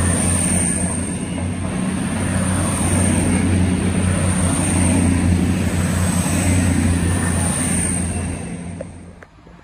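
CrossCountry Voyager diesel multiple unit running past, its underfloor diesel engines droning low with a thin high whine over them. The sound fades quickly as the last car goes by near the end.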